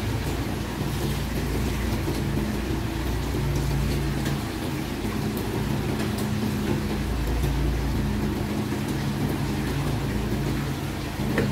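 Hands rinsing chopped bottle gourd in a metal basin of water, with tap water running and the pieces sloshing and splashing, over a steady low hum. A sharp click near the end.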